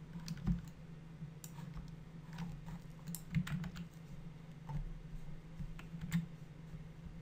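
Irregular clicks of a computer keyboard and mouse, over a steady low hum.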